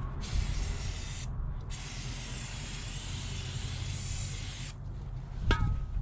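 Aerosol can of starting fluid (ether) sprayed into a skid steer tire around the rim, to set the bead. It comes in two bursts, a short one and then one of about three seconds. A sharp metallic clink follows near the end.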